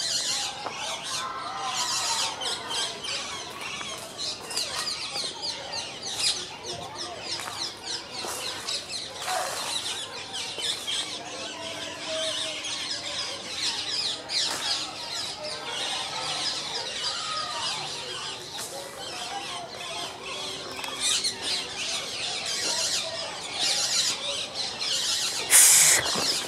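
Many birds chirping and calling in a dense, continuous chatter among trees. About a second before the end comes a brief, loud rush of noise.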